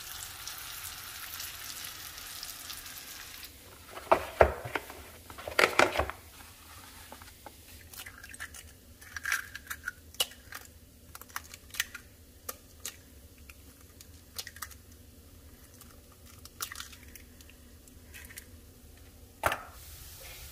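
Corn tortilla pieces frying in bacon grease in a stainless steel pan, a faint sizzle for the first few seconds. Then eggs being cracked into a bowl: two sharp taps of shell on the rim, followed by many small clicks and ticks of shell being pulled apart.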